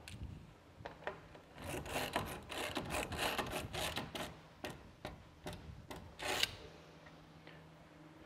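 A Stanley Yankee spiral ratchet screwdriver pushed into cedar hull planking, its bit turning into the wood in a run of short, uneven strokes that starts about a second and a half in and stops a little past six seconds.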